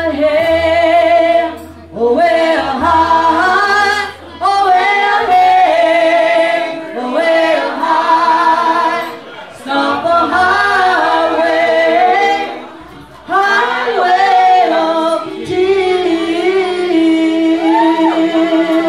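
Women's voices singing a slow song live in phrases of about two seconds, with long held notes and short breaks between phrases, over a low, steady bass note.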